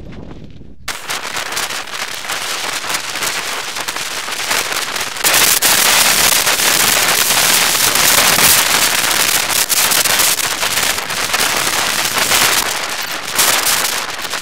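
Loud wind buffeting and crackling on a bicycle-mounted action camera's microphone while riding along the road. It starts suddenly about a second in and gets louder about five seconds in.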